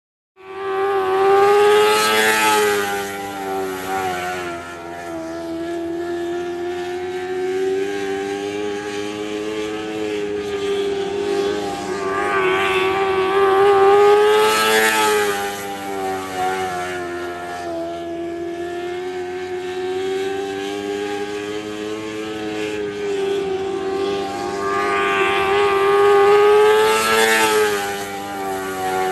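Lightning sprint race car engine running at speed around a track, swelling louder and higher three times, about every twelve seconds, as it laps past.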